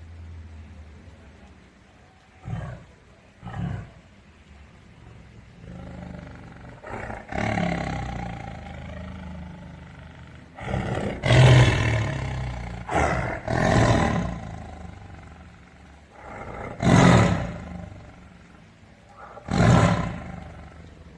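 Tiger roaring and growling in a series of calls: two short grunts a few seconds in, a longer drawn-out growl, then a run of loud roars midway and two more single roars near the end.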